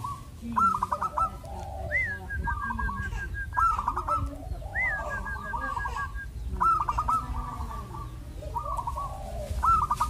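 Zebra dove (perkutut) cooing: its stuttering phrases of quick notes repeat every second or two, over a steady low rumble.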